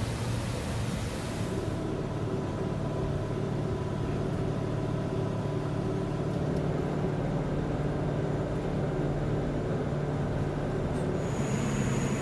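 Mark VI patrol boat's engines droning steadily under way. A broad rush of wind and water is there at first, drops out after about a second and a half so that the engine hum is heard on its own as if inside the cabin, and returns near the end.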